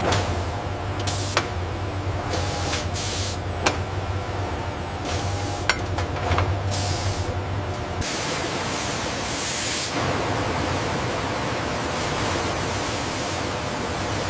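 Factory machine noise: a steady hiss like air or spray, with a low hum and a few sharp clicks in the first half. The hiss grows brighter and fuller about halfway through.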